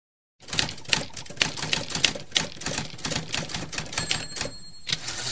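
Typewriter keys clacking in a fast, irregular run, starting about half a second in. The typewriter's bell dings about four seconds in, and a few more keystrokes follow.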